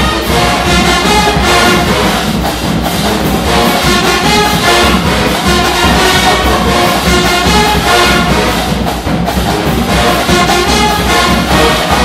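A marching band playing live: full brass of sousaphones, trumpets and trombones over snare and bass drums, loud and steady.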